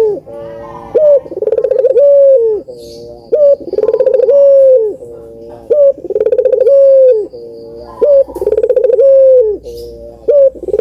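Puter dove cooing, the same phrase over and over: a short rising note, a long loud note, then a softer stepped tail, about every two and a half seconds, four times with a fifth beginning near the end.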